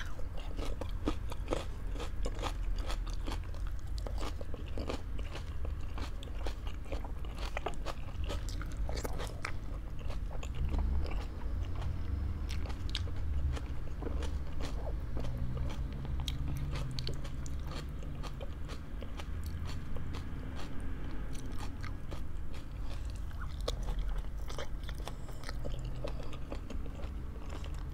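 Close-miked eating: steady chewing with many small crunches and wet mouth clicks, irregular and continuous.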